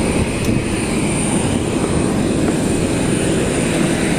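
Turbine engine of a parked ATR 72 turboprop airliner running steadily: a constant high whine over a loud rumble.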